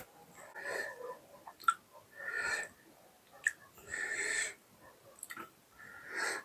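Noisy breathing and mouth sounds of a person eating spicy mutton curry: four short wheezy breaths or slurps, with a couple of small clicks between them.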